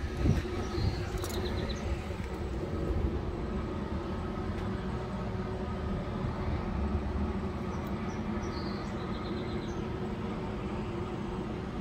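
Steady low mechanical hum and rumble, with a short high chirping pattern heard twice, about a second in and again near the end.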